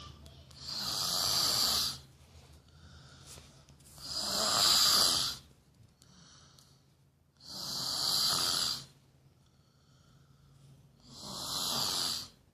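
A woman snoring in a steady rhythm: four long snores about three and a half seconds apart, each lasting over a second, with quiet breathing in between.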